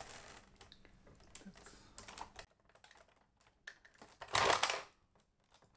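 Small plastic clicks and taps of LEGO bricks being handled and pressed together, with one louder half-second rustle of plastic parts about four and a half seconds in.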